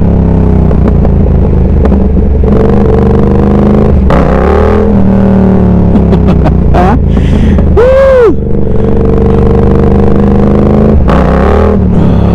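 Yamaha R7's parallel-twin engine revving hard and backing off several times as the throttle is opened and closed, with a quick sharp rise and fall in revs about eight seconds in. The throttle is being worked in low gear to lift the front wheel.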